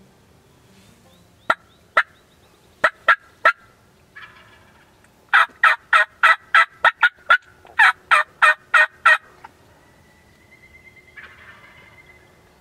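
Loud turkey yelping: two single notes, then three, then a fast run of about a dozen notes.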